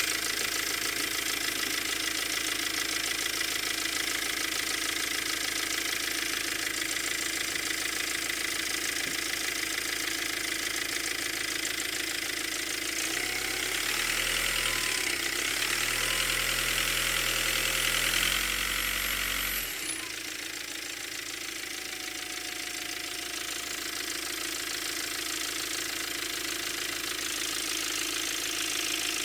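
Volkswagen Passat B6 2.0 TDI diesel with a DSG6 gearbox running, with a background shuffling noise and light crackle that remains after a new LUK flywheel was fitted. The sound gets louder and deeper for several seconds around the middle, then settles back.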